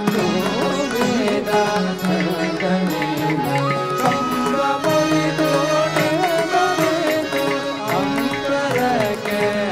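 Live Indian devotional bhajan: voices singing a gliding melody with harmonium, bamboo flute and violins over a steady percussion beat. The flute holds one high note about four seconds in.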